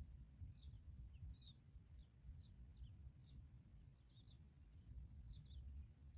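Faint, short, high chirps from small birds, about two or three a second at irregular intervals, over a low steady rumble.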